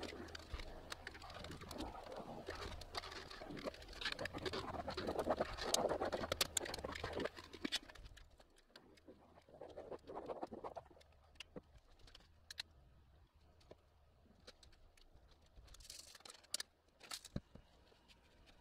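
Caulk gun squeezing out beads of construction adhesive, a dense squelching crackle full of small clicks for the first seven seconds or so, then quieter, with scattered clicks and taps.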